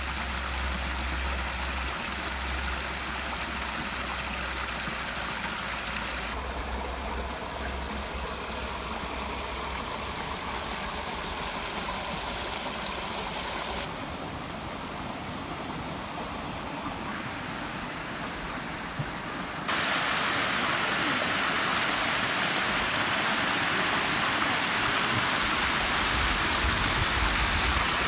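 Water in a small shallow stream running over stones: a steady rush that changes abruptly several times, growing louder and splashier about two-thirds of the way through, where it tumbles over rocks. A low rumble sits under it in the first few seconds.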